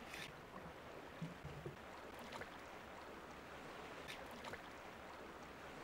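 Faint, steady wash of sea swell, with a few faint clicks.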